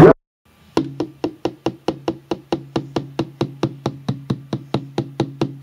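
A Weimaraner's wagging tail knocking against a wooden door, a steady run of sharp knocks about four to five a second, with a steady low hum underneath.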